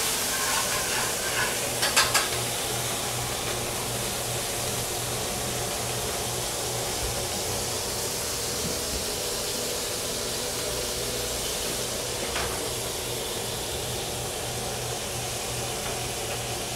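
Butter melting in a hot pan, sizzling with a steady hiss, with a couple of sharp knocks about two seconds in and one faint click later.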